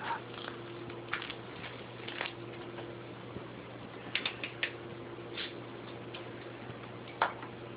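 A few faint, scattered clicks and taps over a steady low hum, with a small cluster of clicks near the middle and a sharper click near the end.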